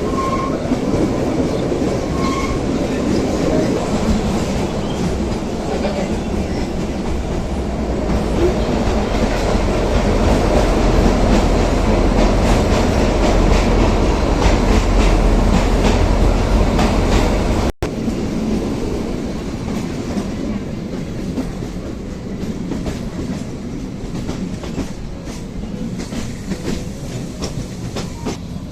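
Kalka–Shimla narrow-gauge toy train running, its wheels clacking over the rail joints above a steady rumble. The rumble grows heavier for several seconds, cuts out for an instant about eighteen seconds in, then carries on quieter.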